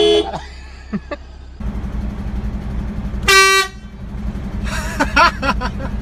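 Air horn blasts: the tail of one loud blast just at the start, then over a steady low vehicle rumble a second short, loud blast about three seconds in. A person's voice cries out about a second later.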